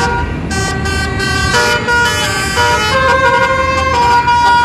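Bus 'telolet' horn, a multi-trumpet musical air horn, playing a tune: from about half a second in a run of held notes that step up and down in pitch, several sounding together, ending on a longer note. A steady low rumble of engine and traffic runs underneath.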